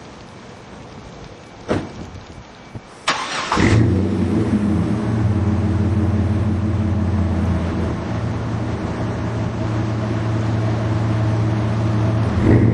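A 2000 GMC Sonoma's 4.3 L Vortec V6 is cranked and fires through a Flowmaster Super 40 exhaust (single 3-inch inlet, dual 2.5-inch outlets). A single click comes first, then a short burst of cranking as the engine catches about three and a half seconds in. It then idles steadily with a deep, even exhaust note and begins to rise near the end.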